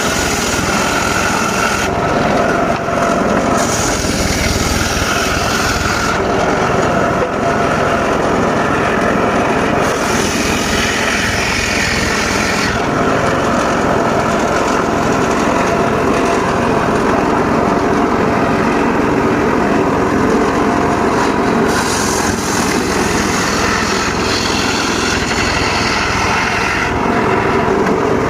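Homemade circular saw bench running continuously while its blade cuts teak. The sharper, hissing part of the cutting drops out and comes back several times.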